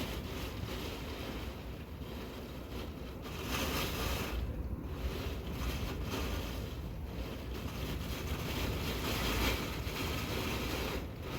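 Strong typhoon wind blowing in gusts that swell and ease every few seconds, with a deep rumble of wind buffeting the microphone.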